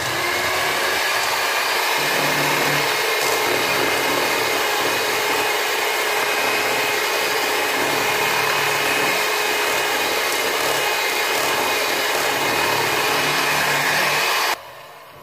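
Electric hand mixer running steadily, its beaters whisking eggs and sugar into a pale foam in a stainless steel bowl for a génoise sponge. It switches off abruptly near the end.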